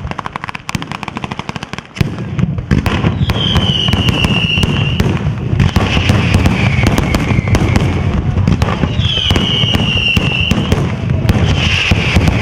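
A sanseverese-style ground firework battery going off: a fast chain of firecracker bangs, then from about two seconds in a denser, louder, continuous volley of explosions. High whistling effects slide down in pitch several times over the bangs.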